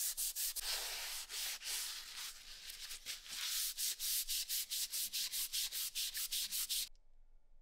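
Rapid back-and-forth hand scrubbing of a rusty Carcano rifle's steel barrel with an abrasive pad, scouring off rust in quick, even strokes of about five a second. The scraping cuts off abruptly near the end.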